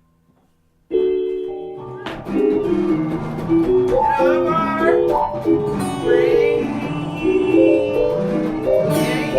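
Near silence for about a second, then a held keyboard chord comes in suddenly. From about two seconds in, a band plays an instrumental passage with guitar, bass and piano lines.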